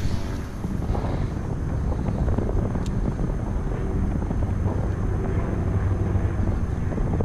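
Steady low rumble of wind buffeting the microphone over open water. A short swish of a rod being cast comes at the very start.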